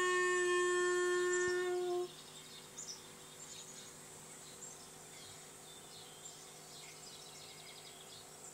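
A single long howl held at one steady pitch, which cuts off about two seconds in. After it come faint scattered bird chirps and insect sounds from a forest soundtrack.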